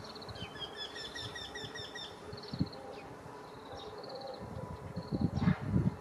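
Eurasian wryneck singing: a run of about nine evenly spaced, nasal notes lasting nearly two seconds, with short high rapid trills before and after it and a low rumble near the end.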